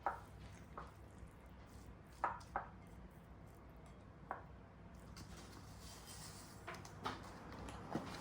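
Occasional light knocks and clicks of kitchen utensils and dishes, about seven scattered over several seconds, the sharpest two a little after two seconds in, over a low steady hum.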